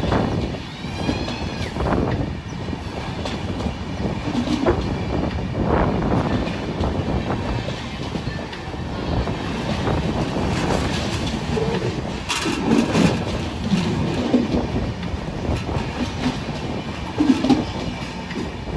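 Passenger train coaches rolling past close by, their wheels clattering over the rail joints in a steady run of knocks.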